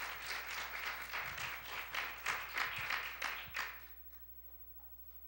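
Audience applauding, a dense patter of many hands that dies away about four seconds in.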